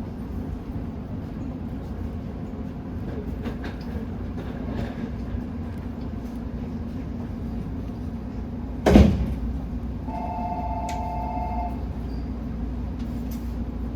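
Toyo Rapid Railway 2000 series electric train running at speed, a steady rumble with a constant hum. About nine seconds in there is a single loud thump, and a second later a steady electronic tone of several pitches sounds for about a second and a half.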